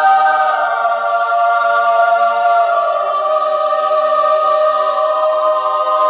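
Choir sound effect: voices singing one long held chord.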